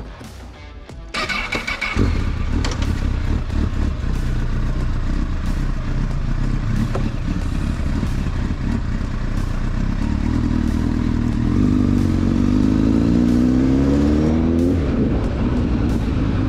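Honda sport motorcycle engine cranked and catching about two seconds in, then running steadily as the bike pulls away. From about ten seconds in the engine climbs in pitch under acceleration, and it drops back near the end.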